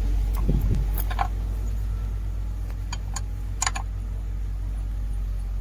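A few light metallic clicks and clinks of hand tools working a cable terminal loose on a truck's starter motor, over a steady low hum.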